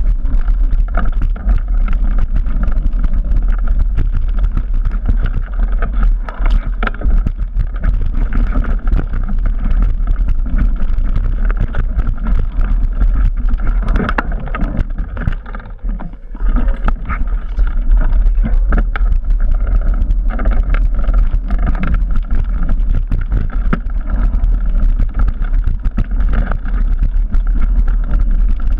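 Trek Remedy 9 full-suspension mountain bike descending a rough dirt singletrack: tyres on dirt and a constant clatter of knocks and rattles from the bike over roots and stones, under a steady low rumble of wind on the microphone. The noise dies down briefly about halfway through, then picks up again.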